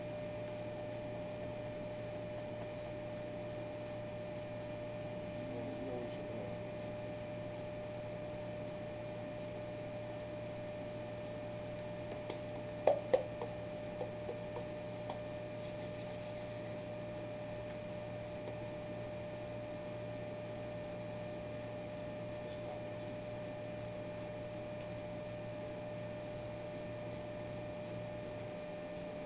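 Steady electrical hum with a single held tone running under it, and a quick pair of sharp clicks about halfway through, the loudest sound.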